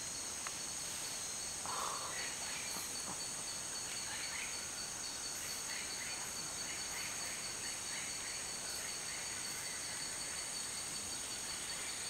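Rainforest insect chorus: a steady high-pitched drone of several held tones, with faint short calls scattered through it and a brief call about two seconds in.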